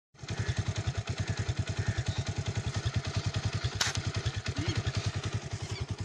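Engine running steadily with a low, even chugging of about twelve beats a second. A single sharp snap a little under four seconds in.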